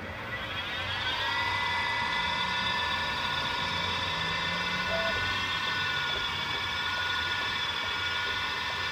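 Home-built epoxy-granite CNC mill cutting 440C stainless steel with a small end mill. A whine of several stacked tones rises over about the first second and a half as the machine comes up to speed, then holds steady over a low hum.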